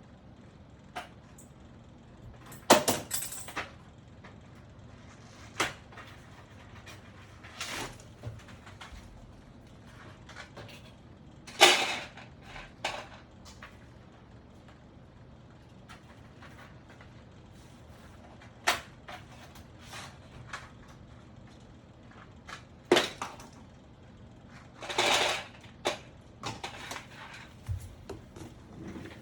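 Irregular clicks, knocks and brief rustling as keyboard parts and boxes are handled and set down on a desk, with the sharpest knocks near the start and about halfway through.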